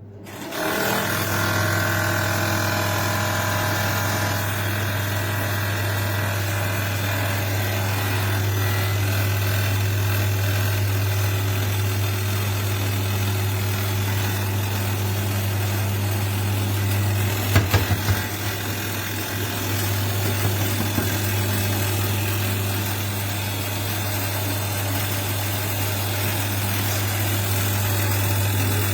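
Air fryer running: its convection fan motor gives a steady low hum over a rush of circulating air, with a few clicks about 18 seconds in.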